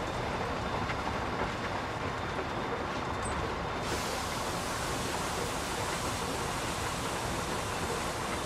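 Inside a truck cab while driving: a steady diesel engine drone mixed with tyre and road rumble, with a brighter hiss joining about four seconds in.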